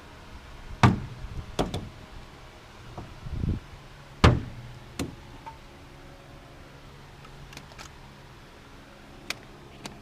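Sharp knocks and clatter from tools and parts being handled during an engine teardown. The loudest comes about a second in and again just past four seconds, with lighter taps near the end.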